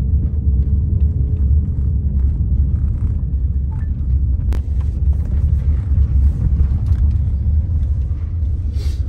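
Steady low rumble of road and wind noise heard from inside a moving truck with a window down. One sharp click about halfway through.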